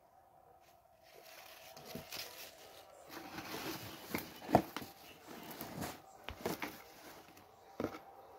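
Things being placed and arranged in a cardboard box: soft rustling of ribbon and packed items, with a few light taps and knocks, the sharpest about four and a half seconds in.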